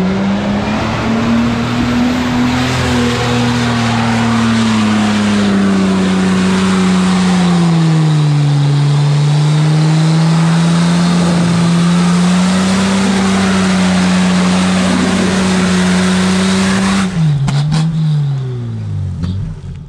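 Toyota Land Cruiser pickup's engine held at high revs under heavy load as the truck churns through deep mud, with a loud hiss of tyres and mud under the steady engine note. About halfway through the revs sag and pick up again, and near the end the engine note drops away.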